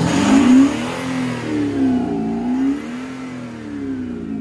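Audi A6 allroad 3.0 BiTDI twin-turbo V6 diesel, with a Kufatec Sound Booster adding a synthetic exhaust note, accelerating hard at full throttle past and away. It is loudest about half a second in, and its note rises and falls several times as it pulls away and fades.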